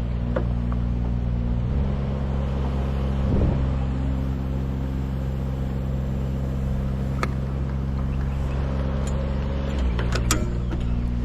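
An engine running at a steady speed, dropping to a lower pitch about two seconds in and stepping back up near the end, with a few sharp clicks over it.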